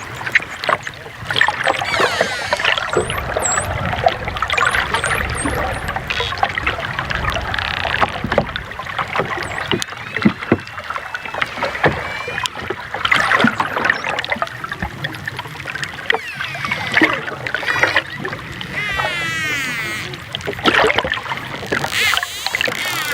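Dolphins whistling and clicking underwater: many rising and falling whistles, with sharp clicks scattered through, over a constant wash of noise.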